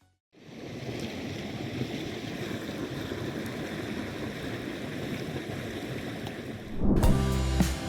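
Mountain stream water rushing steadily, starting just after a brief silence. Music comes in loudly near the end.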